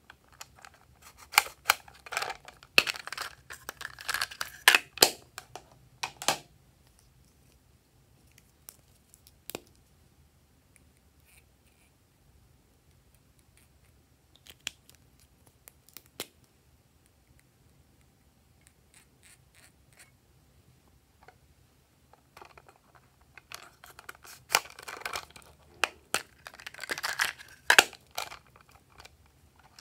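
Slime being squished and stretched by hand, giving bursts of sharp popping and crackling clicks in two spells, near the start and again about 23 seconds in, with a few single pops between.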